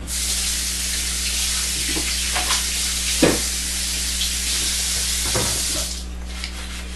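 A steady hiss that starts suddenly and stops about six seconds in, with a few soft knocks over it, the clearest a little after three seconds.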